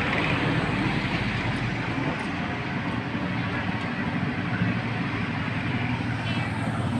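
Street traffic: motorcycles and cars driving past, a steady mix of engine hum and tyre noise. A van passes close near the end.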